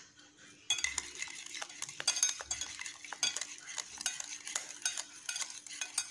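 Wire whisk beating a thin egg-and-sugar batter in a metal bowl: a fast, continuous run of clinks and scrapes as the wires strike the bowl, starting under a second in.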